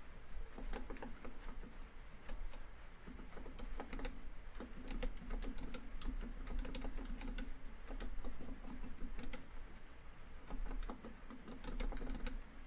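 Laptop keyboard typing in quick runs of keystrokes with brief pauses, over a steady background of rain on a tin roof.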